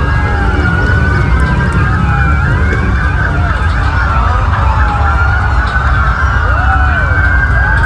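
Several police motorcycle sirens sounding at once, their rising and falling wails overlapping, with a low rumble underneath.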